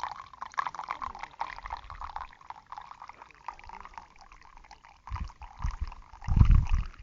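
Running, splashing water with a dense, fine crackle. From about five seconds in there are low rumbles and thuds, the loudest of them near the end.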